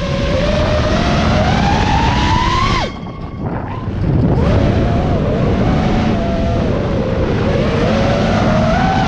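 FPV drone motors and propellers whining, the pitch climbing as throttle is added, then dropping sharply about three seconds in as the throttle is cut. About a second later it comes back on, wavering in pitch and rising again near the end.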